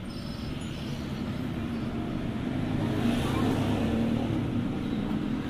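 A motor vehicle's engine running steadily with a low hum, getting louder about halfway through.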